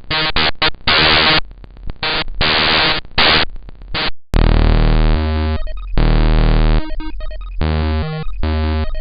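Harsh, glitchy synthesized sound effects from the REGEX GDI malware: a choppy stream of buzzing, crackling noise bursts that stop and start, switching abruptly a little over four seconds in to a rhythmic, blocky pattern of harsh electronic beeps over stepping low bass tones.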